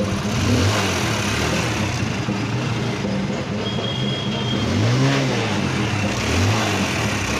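Mahindra motorbike engine idling and blipped up in revs three times, each rise falling straight back to idle, the biggest about five seconds in. The engine is being run to show an engine noise problem.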